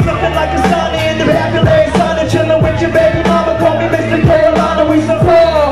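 Live hip hop music through a club PA: a backing beat with a repeating deep bass line and drum hits, and a long held note on top that falls away near the end.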